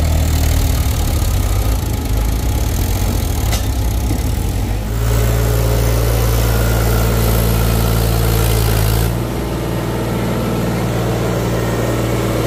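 Diesel engine of a Powertrac Euro 50 tractor running steadily as the tractor drives through deep mud. The engine note changes abruptly twice, about five and nine seconds in.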